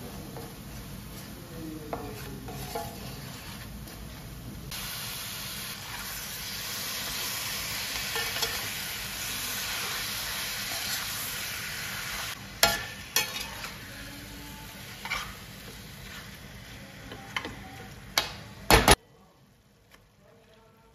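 Onions sizzling in a stainless-steel pan as they are stirred; from about five seconds in the sizzle grows louder as chicken pieces are stirred through with a slotted metal spoon. In the second half the spoon scrapes and knocks against the pan several times, loudest twice in quick succession, then the sizzle cuts off suddenly.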